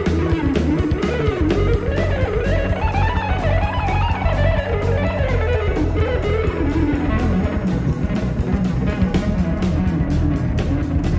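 Instrumental band music: a guitar playing a winding lead melody that climbs and falls, over bass guitar and a steady drum-kit beat.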